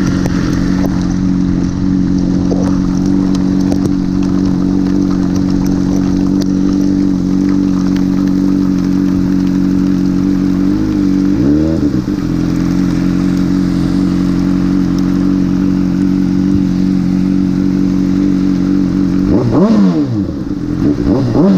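Honda CBR600RR's inline-four engine running at steady cruising revs, its note briefly dipping and climbing again about eleven seconds in and twice more near the end as the revs change.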